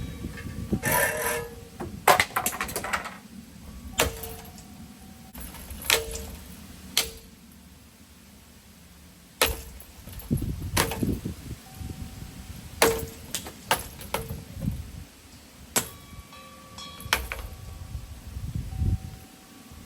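A ceiling fan being smashed: about a dozen irregular hard hits on its metal parts, several leaving a short clanging ring, over a low rumble.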